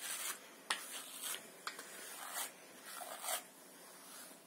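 Long hair being combed out to remove excess dry-shampoo powder: a series of short scratchy strokes, with a sharp click about two-thirds of a second in.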